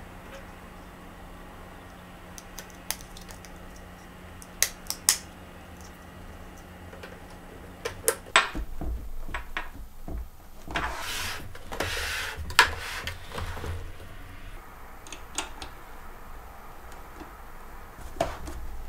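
Handling noise from assembling a plastic mini exercise bike on a wooden table: scattered sharp clicks and knocks as parts are fitted, with a couple of seconds of scraping and rubbing midway as the bike is gripped and shifted.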